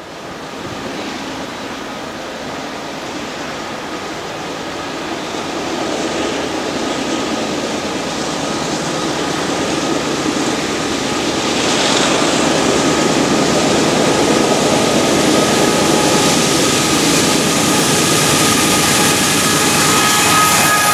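Freight train approaching behind a GE AC44CW diesel locomotive: a continuous rumble and rush that grows steadily louder as the lead unit nears, with a thin high steady ringing joining in about halfway through.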